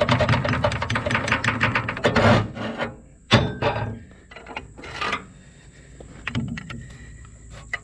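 Rapid tapping on the steel parts of a mower deck to knock a blade or plate loose sideways, a quick rattling run of strikes, then one sharp knock about three seconds in and a few lighter knocks and scrapes.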